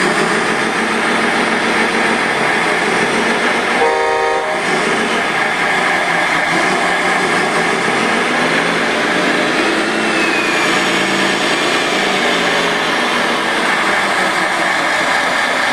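Radio-controlled model wheel loader and truck working: a steady electric whine over a low mechanical hum, with one short horn toot about four seconds in and the pitch rising and falling a little around the middle as the loader backs away.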